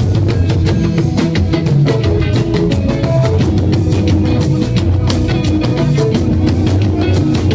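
Live band music with drum kit and electric guitar playing a steady, fast beat, with no singing.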